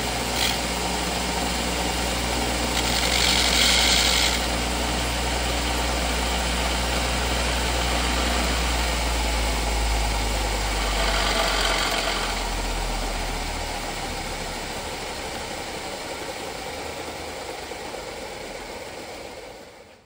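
Electric grinder running with a steady hum, with two short bursts of metal being ground against the wheel about three and eleven seconds in. The motor is then switched off and the wheel slowly winds down over the last several seconds.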